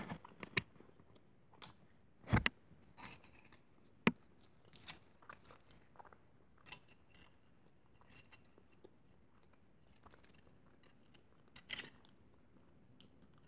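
Someone chewing a hollow chocolate Easter egg: scattered soft mouth clicks and small crunches, with louder ones about two and a half and four seconds in and again near the end.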